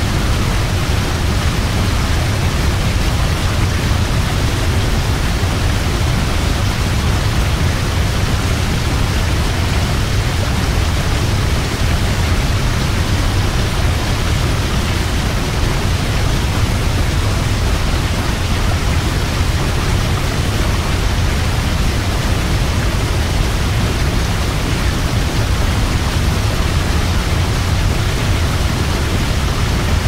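Waterfall: a steady, unbroken rush of falling water, heaviest in a deep low rumble.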